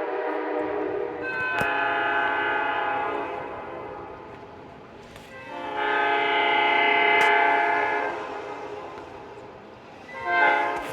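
Locomotive multi-chime air horn sounding a steady chord in several long blasts, with a short blast near the end.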